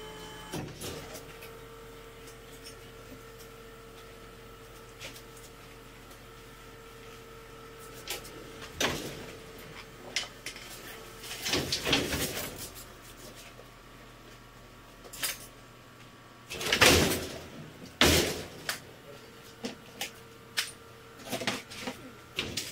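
Bin-lifting mechanism of a food-waste compost machine running with a steady hum as it raises a wheelie bin of kitchen scraps. Partway through come loud metal clanks and knocks as the bin tips and shakes out into the hopper. The hum returns near the end.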